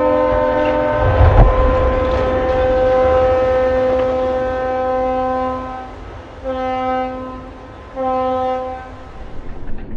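Ship's horn sounding a long chord-like blast, then two short blasts near the end, as a ship is launched sideways. About a second in, a heavy low rumble as the hull slides into the water.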